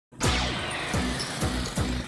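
Background music with a heavy drum beat and held low notes, starting abruptly.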